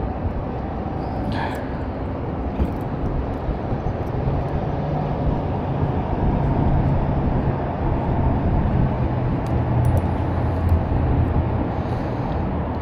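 Steady road-traffic rumble, with the deeper hum of a passing vehicle swelling about four seconds in and fading near the end.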